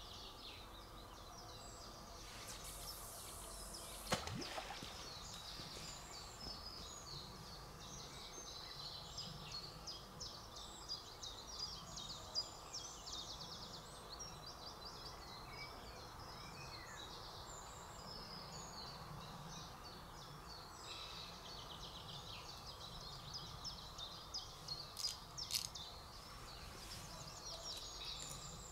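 Woodland birds chirping and singing busily throughout. A brief high hiss comes about three seconds in, then a single sharp click about four seconds in, the loudest sound, with a few fainter clicks near the end.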